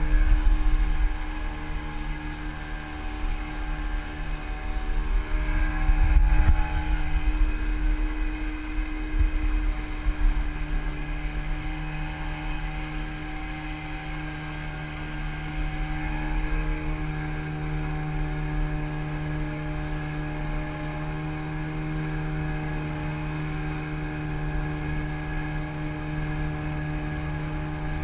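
A single outboard motor drives a trimaran along at speed, its drone holding a steady pitch. The boat's second outboard is out of action, so it runs on this one engine alone.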